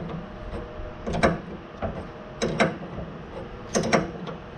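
Adjustable wrench turning a new inner tie rod on a 2002 Chevy Silverado 2500HD's steering rack: three short bursts of metal-on-metal clacks, about one every second and a half, as the wrench is swung and reset.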